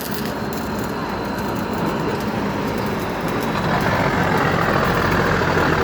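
Heavy vehicle engine running with a low hum, growing louder from a little past halfway as it draws closer.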